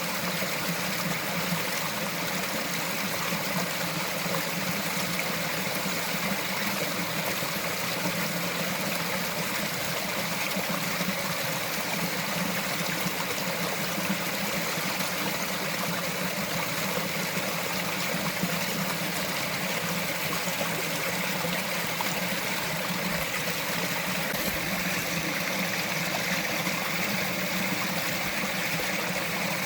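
Small mountain forest stream trickling and gurgling over rocks, a steady, unbroken flow of water.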